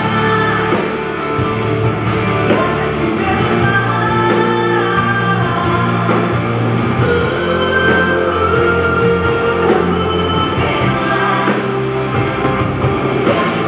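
A woman singing live into a microphone over a rock band, with guitars and a steady drum beat, heard from the audience in a concert hall.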